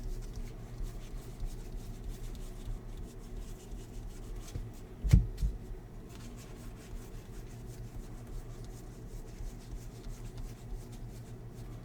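Baseball trading cards handled and slid against one another, a soft continuous rubbing over a low steady hum, with one sharp knock about five seconds in.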